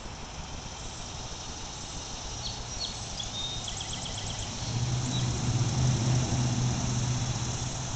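A low, steady engine hum that grows louder a little past halfway, with a few short high bird chirps and a quick trill in the middle.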